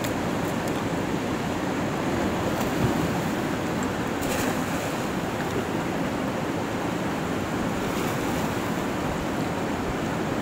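Fast-flowing river rushing over rocks and through rapids: a steady wash of water.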